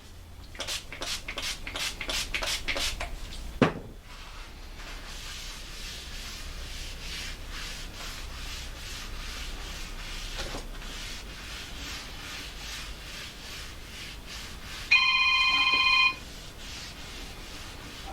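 Quick back-and-forth scrubbing strokes, about three a second, of a cloth wiping a surface plate clean with white vinegar, then a click and quieter steady rubbing. About 15 s in a telephone rings for about a second, the loudest sound.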